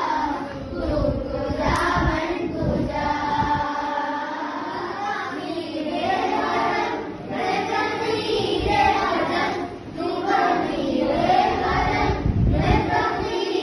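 A group of children singing a song together in chorus, several voices carrying one melody.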